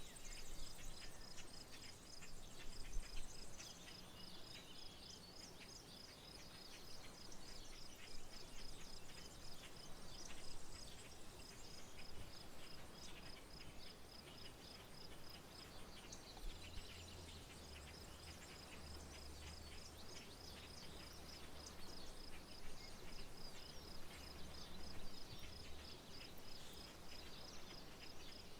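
Rural outdoor ambience: a steady, high-pitched pulsing insect trill that pauses for a few seconds midway and then resumes, over scattered bird chirps. A low hum comes in during the second half.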